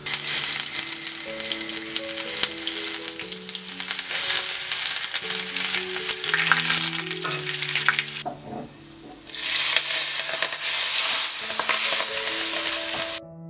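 Cumin seeds and turmeric frying in hot oil in a non-stick frying pan: a dense, crackling sizzle. It dips briefly about eight seconds in, sizzles loudly again, then cuts off suddenly near the end.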